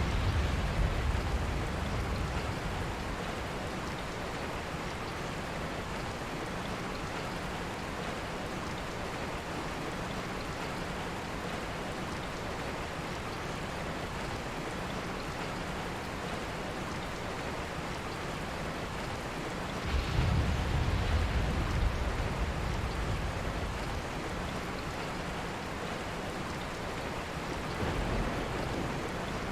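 Steady rain falling, an even hiss with no rhythm. Low rumbles swell up under it near the start and again about two-thirds of the way through, with a softer one near the end.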